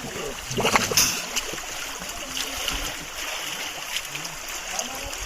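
Stream water flowing steadily, with a splash about a second in.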